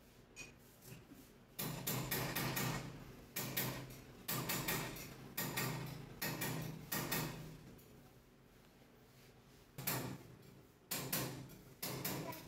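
Metal lathe chuck turned back and forth by hand while a cue tip is pressed onto the ferrule. The spindle makes a short rumbling slide with each turn, in a quick run of strokes, then a pause, then three more near the end.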